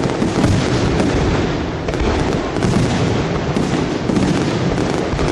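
Fireworks display: a dense, continuous barrage of bursts and crackles with no pause.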